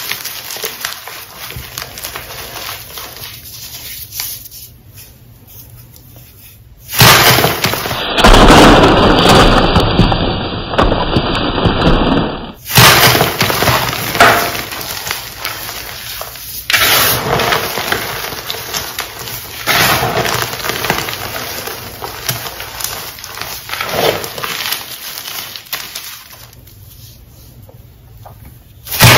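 Crushed gym chalk being squeezed and crumbled between bare hands: dry, crumbly crunching in bursts, with a long loud stretch from about seven to twelve seconds in and a sharp crunch at the very end.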